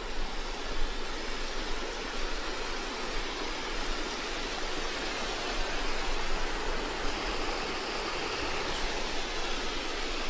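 Steady rush of a creek's flowing water.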